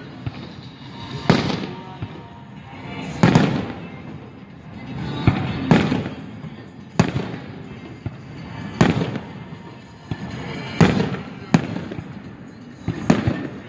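Aerial firework shells bursting: a sharp bang every one to two seconds, about eight in all, each trailing off in an echo.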